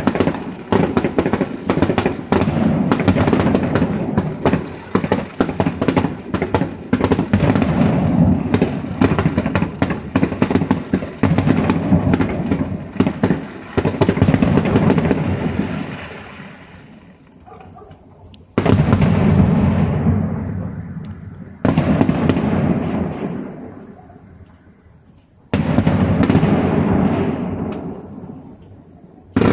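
Fireworks display: a dense run of bangs and crackling for roughly the first fifteen seconds that then dies away, followed by three separate big bursts, each starting suddenly and fading over a few seconds.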